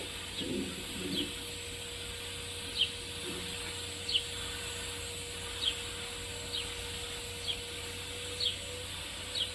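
A small bird giving short, high, falling chirps, roughly one a second, over a steady hum.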